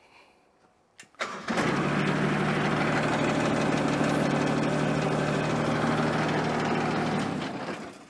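A motor switching on with a click and running steadily for about six seconds, tilting the equipment back up, then winding down near the end.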